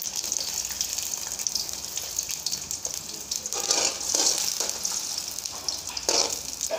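Chopped onions sizzling as they fry in hot oil in a metal karahi, with a steady hiss. A metal slotted spoon scrapes and stirs them against the pan a few times, from about three and a half seconds in.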